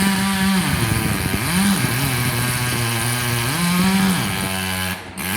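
Two-stroke chainsaw running hard while cutting into the trunk of a large dead ash tree, its engine pitch dropping under load and rising again several times. There is a brief break near the end.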